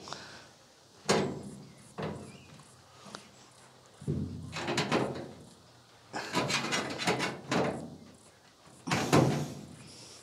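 Sheet-metal knocks and clanks from a clothes dryer's steel cabinet as its dented edge is bent back into shape with a hand tool: separate knocks about 1 and 2 seconds in, then clusters of clanking around the middle and again near the end.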